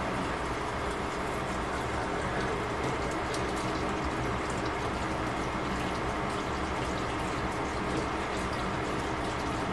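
Covered pot of cabbage and carrots cooking on the stove, its water simmering under the glass lid: a steady bubbling hiss scattered with small ticks and pops.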